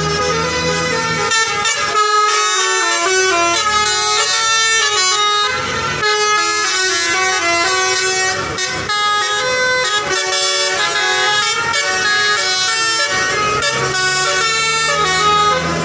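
A bus's telolet horn, a set of musical air horns, playing a quick tune of several tones at once that step up and down in a rhythmic pattern.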